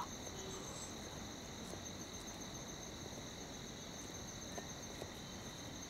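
Crickets chirring steadily, a faint high continuous trill.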